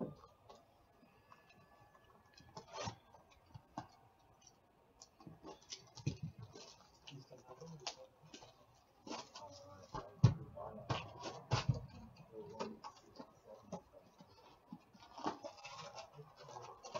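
Hands opening a sealed box of hockey cards: cardboard scraping and tearing and plastic wrap and foil packs crinkling, with irregular clicks and a few knocks against the table, busiest and loudest about ten to twelve seconds in.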